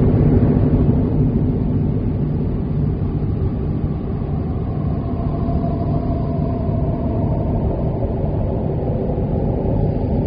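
Low, steady droning music played live on traditional Tibetan instruments, several deep held tones sounding together.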